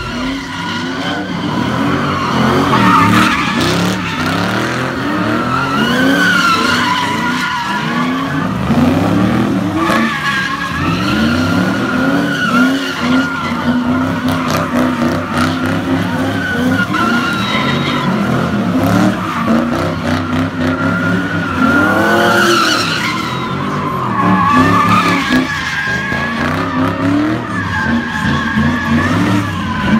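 Cars doing burnouts and donuts: tyres squealing with a wavering pitch over engines revving up and down in repeated surges.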